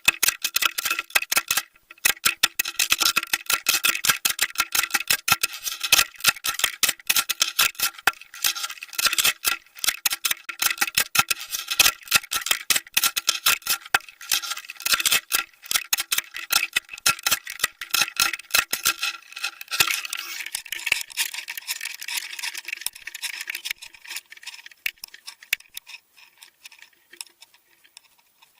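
Rapid, irregular clicking and crackling picked up underwater by a fishing camera, with a faint steady hum beneath it. The clicks thin out about twenty seconds in and nearly stop near the end.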